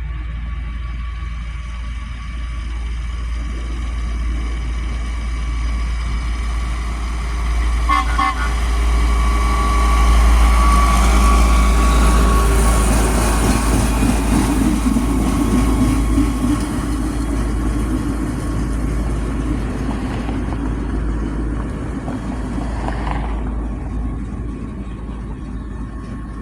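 Rail equipment passing by, swelling to its loudest in the middle and easing off, with a short horn toot about eight seconds in and another brief pitched sound near the end.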